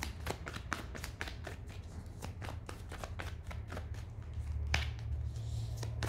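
A deck of tarot cards being shuffled by hand: a rapid run of soft card flicks and slaps, several a second, over a steady low hum.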